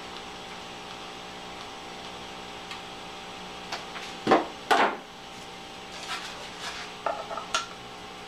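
Hot glue gun and foam board being handled on a wooden table: two sharp knocks about halfway through, then a few lighter clicks and taps near the end, over a steady low hum.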